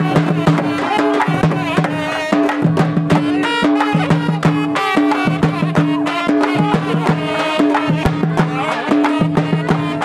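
Folk music with fast drumming: many rapid drum strokes over a low two-note pattern that keeps repeating, with a wavering melody above.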